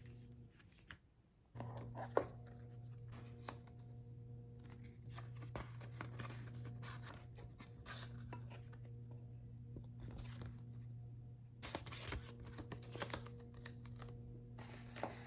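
Paper and plastic packaging being handled: irregular rustles, crinkles and scrapes, over a steady low electrical hum.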